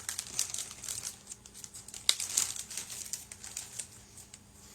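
Plastic packaging bag crinkling and rustling as it is opened by hand, with a sharp click about two seconds in. The crinkling dies down near the end.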